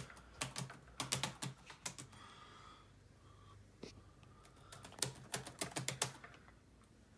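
Laptop keyboard being typed on in two bursts of quick keystrokes, the first over the opening two seconds and the second around five to six seconds in, with a pause between.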